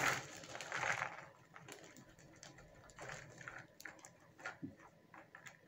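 Plastic bag of cardboard jigsaw pieces crinkling as it is shaken out, loudest in the first second, followed by light scattered clicks and rustles of pieces dropping into a cardboard box.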